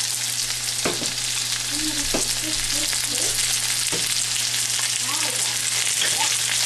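Chicken pieces sizzling steadily as they fry in hot oil in a pan, being sautéed, with three sharp knocks of the stirring spatula against the pan.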